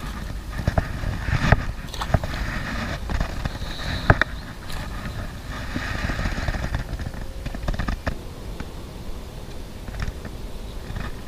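Wind rumbling on an action camera's microphone, with scattered sharp knocks and rustling from handling and movement, loudest about one and a half and four seconds in.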